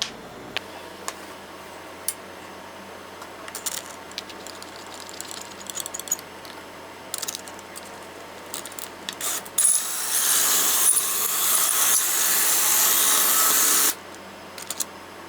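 Small metal and wooden parts clicking and knocking as a jig is assembled on threaded rod. About ten seconds in, a handheld power tool runs loudly for about four seconds, then cuts off sharply.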